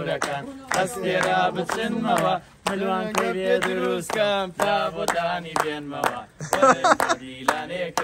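Men singing together while hands clap in a steady beat, about three claps a second.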